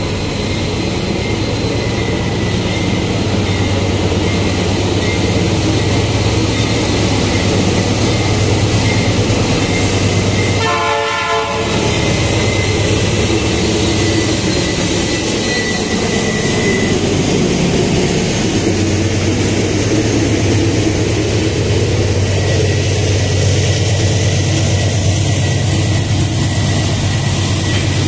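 Diesel-electric freight locomotive approaching and passing at close range, its engine running loud with a deep steady hum, and a short horn blast about eleven seconds in. The container flat wagons then roll past steadily on the rails.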